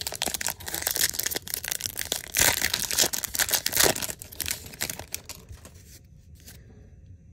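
A foil-lined Topps trading card pack wrapper being torn open and crinkled by hand. It is loudest two to four seconds in and dies down after about five seconds.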